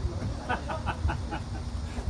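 A person's voice in a quick run of about six short, evenly spaced syllables, over a steady low rumble.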